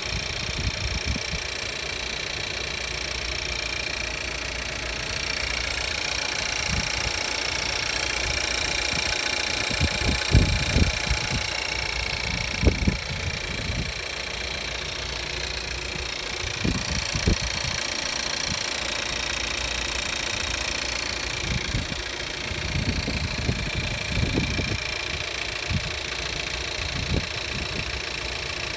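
2015 Audi A3's 1.4-litre TFSI turbocharged four-cylinder petrol engine idling steadily, heard from the open engine bay. A few short low thumps come through in the middle and toward the end.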